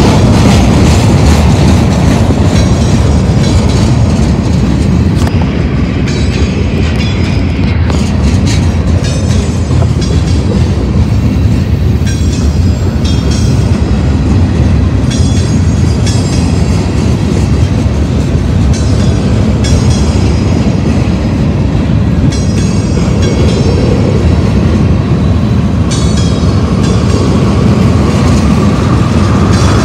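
Manifest freight train's cars rolling past: steel wheels on the rails making a loud, steady rumble.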